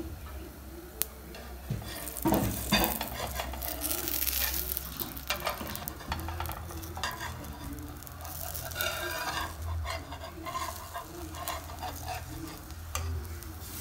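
A pancake sizzling in a hot frying pan, with scattered scrapes and taps as a slotted spatula is slid under its edge. The bubbled top shows the underside is nearly done, ready to flip.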